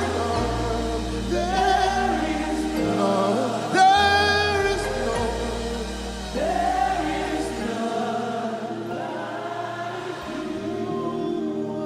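Gospel worship music: voices singing over sustained instrumental chords and low bass notes, with a loud held sung note about four seconds in.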